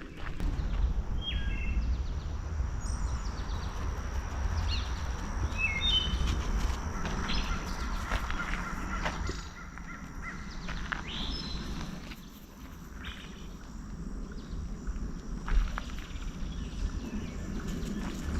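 Woodland ambience: a handful of short bird chirps, mostly in the first six seconds, over a faint steady high hum and a low rumble from walking.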